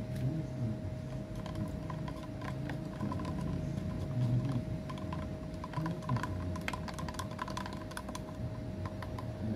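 Quick, irregular light clicking and tapping of a stirring stick against a small plastic cup as airbrush paint is mixed with thinner, starting about a second and a half in, over a steady faint hum.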